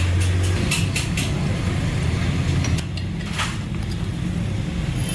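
Steady low rumble of road traffic, with a few short clicks and knocks over it.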